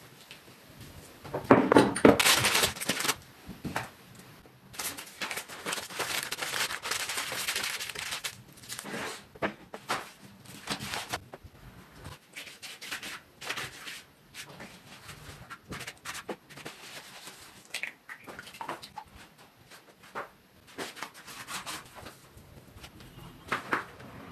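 Hand food-preparation sounds, a run of rustles and squelchy handling noises: grated zucchini squeezed out by hand, thin yufka pastry sheets crinkling as they are spread out and brushed with olive oil, and grated zucchini scattered over the pastry.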